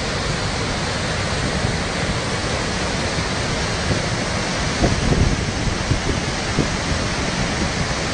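Steady rushing of a flooded river's muddy torrent sweeping through a town, with a couple of brief louder low bumps about five seconds in.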